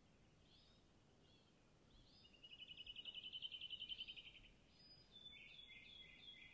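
Faint birdsong in open grassland: scattered short chirps and, in the middle, a rapid trill lasting about two seconds.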